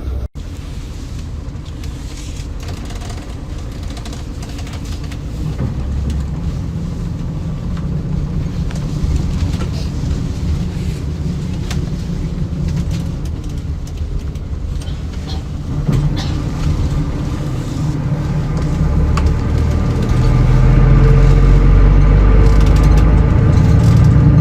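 Low steady rumble of a road vehicle running, louder over the last few seconds.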